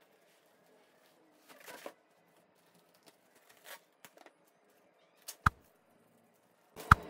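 Near silence broken by a few faint rustles and scrapes, then sharp clicks about five seconds in and again near the end: handling of the parcel and its packaging during unboxing.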